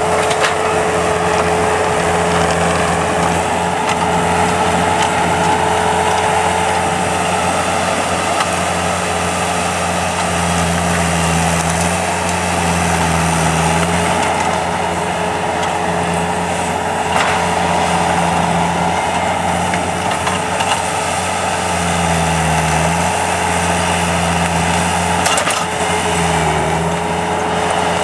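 Skid loader engine running steadily under varying load, swelling and easing every few seconds while it works the tree-puller attachment, with a couple of sharp knocks.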